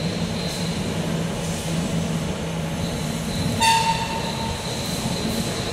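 Steady hum of running machinery. About three and a half seconds in there is one short, ringing metallic clink.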